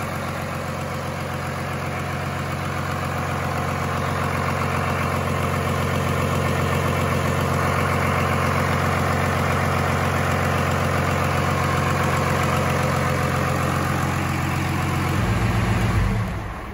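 Newly installed Cummins 6BT 12-valve inline-six turbo diesel idling steadily during its break-in run, with an injection pump that sounds right to the builder. About 15 seconds in the sound changes, and right at the end it drops away.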